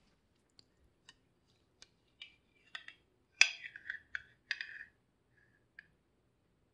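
A metal spatula clicking and scraping against a ceramic plate as fried eggs in onion rings are slid onto it. Scattered light clicks lead to a cluster of clinks and short scrapes; the loudest click comes about three and a half seconds in.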